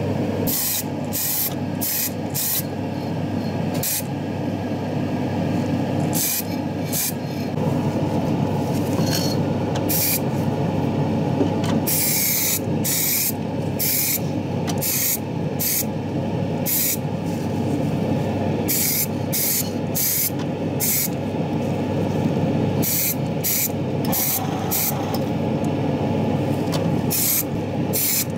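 Short hissing bursts of a paint sprayer spraying synthetic varnish, some twenty of them at a few tenths of a second each, with a longer burst about twelve seconds in. They sound over a steady low machine hum.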